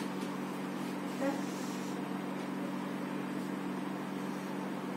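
Steady low hum of room tone, with one brief short sound about a second in.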